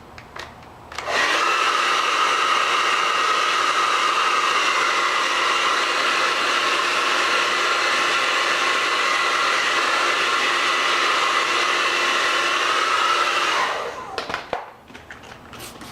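Handheld hair dryer switched on about a second in and blowing steadily, then switched off near the end, heating a vinyl sticker to make it pliable.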